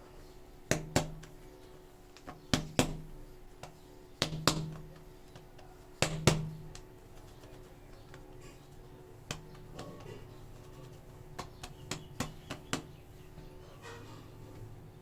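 Sharp clicks and taps from handling air-dry clay and its containers: four loud pairs of snaps about two seconds apart over the first six seconds, then lighter, scattered ticks. Soft background music runs underneath.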